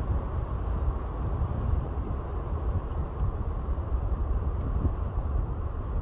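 Biting winter wind blowing through eastern white pines: a steady rush that swells a little in gusts, with a deep rumble of wind buffeting the microphone.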